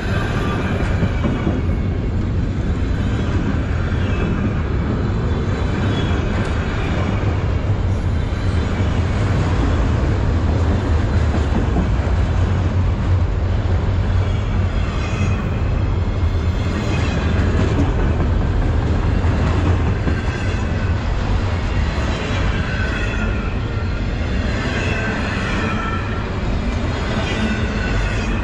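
Freight train's autorack and flat cars rolling past at speed: a steady, loud rumble of steel wheels on rail. A faint high wheel squeal comes and goes from about halfway on.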